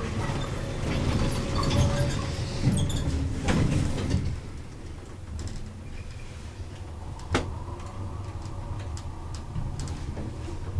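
Lift ride: the car's travel noise rumbles for about four seconds, then settles to a quieter steady hum, with a single sharp click about seven seconds in.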